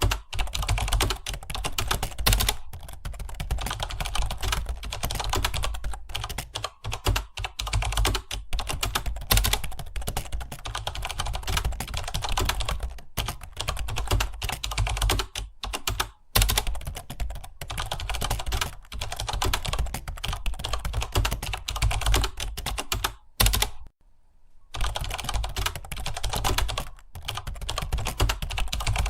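Fast, continuous typing on a computer keyboard: a steady stream of keystrokes with brief gaps, and one pause of about a second roughly three-quarters of the way through.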